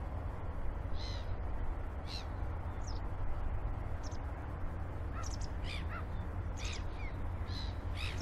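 Harbour ambience: birds crying about ten times in short, arched calls over a steady low rumble.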